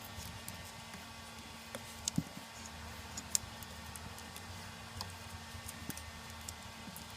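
Scattered light clicks and ticks of hands working on a wiring harness, the strongest a few after two seconds in and one about three seconds in, over a faint steady low hum.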